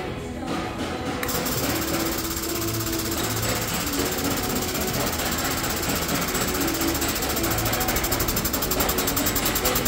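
Handheld power tool, likely an air tool, running with a fast rattling stroke against the front end of a crash-damaged car, starting about a second in and running on.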